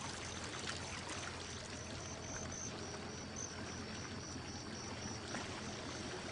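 Steady rush of moving water with a faint low hum underneath.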